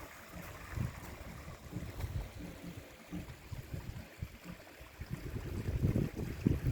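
Mountain stream trickling, with wind rumbling on the microphone in uneven gusts that grow stronger near the end.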